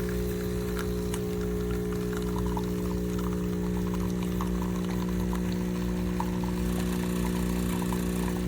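CASABREWS 20-bar espresso machine's pump running with a steady hum while pulling a shot. Faint crackling joins it about two seconds in.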